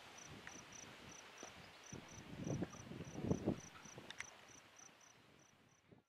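An insect chirping steadily at about three high chirps a second, with a few soft low thumps in the middle.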